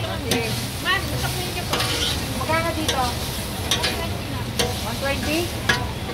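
Metal spatulas scrape and clack on a flat-top griddle as tofu cubes are turned in the oil, with a sharp stroke about once a second. Frying tofu sizzles underneath.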